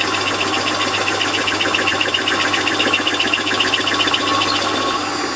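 Lathe running with a 20 mm cutter in its chuck boring through metal, the cutter's edges making a fast, even chatter over the motor's steady hum; the cutting sound eases about five seconds in.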